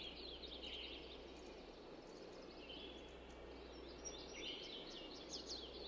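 Small birds chirping and twittering in quick clusters over a steady low background hum, busiest in the second half.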